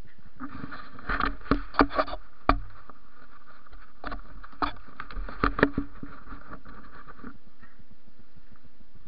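Handling noise on a body-worn camera: rustling and rubbing as the wearer moves, with about a dozen sharp knocks and clicks in two clusters, near the start and around the middle.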